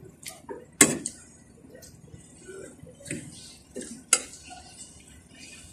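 Metal spoon and fork clinking and scraping against a plate while scooping rice: several sharp clinks, the loudest about a second in and again just after four seconds.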